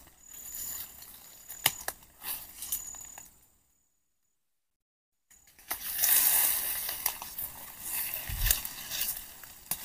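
Rustling and crackling in dry leaves and undergrowth, with scattered sharp snaps. The sound cuts out completely for nearly two seconds after about three seconds, then the rustling comes back louder, with a couple of low thuds near the end.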